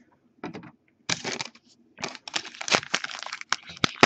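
Foil trading-card pack wrapper crinkling in the hands as it is torn open: short bursts of crackling, then near-constant crinkling for the last two seconds.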